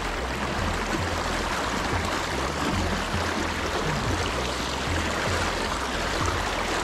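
Steady rush of river current flowing past, an even watery noise with no breaks.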